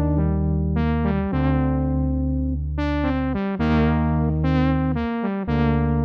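ASM Hydrasynth playing a Prophet-5-style synth brass patch: chords over held bass notes. Each chord starts bright and then mellows, with a new chord about every one to one and a half seconds.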